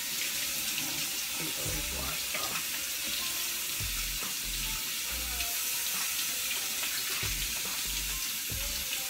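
Kitchen tap running steadily into the sink while white mushrooms are rinsed under it, with a few dull low thumps.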